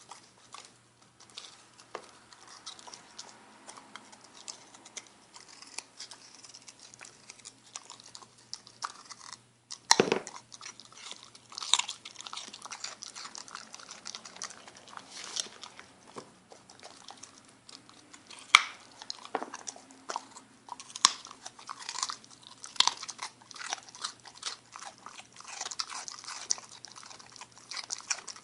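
A puppy crunching and chewing a raw baby carrot: irregular wet crunches and bites, with a few louder snaps of the carrot breaking.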